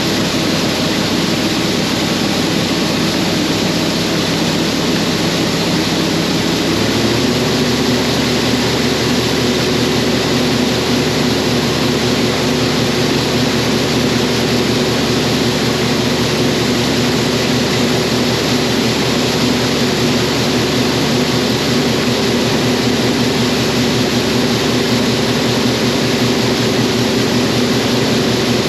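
Combine harvester's diesel engine and machinery running steadily under load while harvesting corn; the engine note shifts about seven seconds in, then holds.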